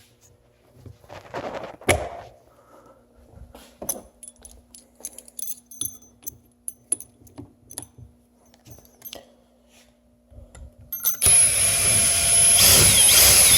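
Small metallic clinks and handling knocks, like a socket and lag bolt being handled, then about 11 seconds in a cordless Milwaukee mid-torque impact wrench starts up and runs loudly and steadily to the end.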